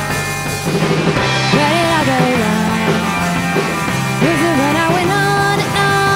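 Live rock band playing a song, with a lead singer's voice coming in about a second and a half in.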